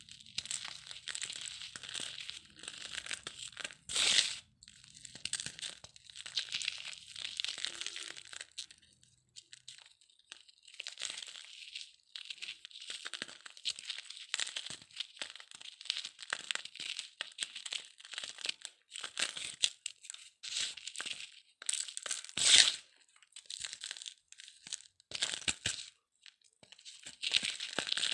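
Dry cement being crumbled: an irregular run of gritty crunching and crackling that comes in bursts with short pauses, with two louder crunches, about four seconds in and a little past twenty-two seconds.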